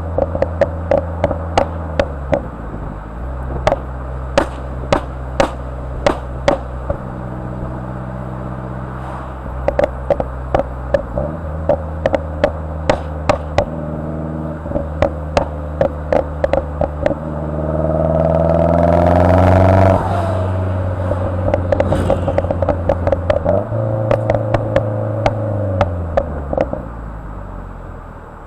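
2010 Mazdaspeed3's turbocharged four-cylinder through a turbo-back exhaust, with the tune's pops and crackles enabled: a steady engine note broken by many sharp exhaust cracks. About two-thirds of the way through the revs climb for a few seconds and cut off suddenly, then another run of crackles follows.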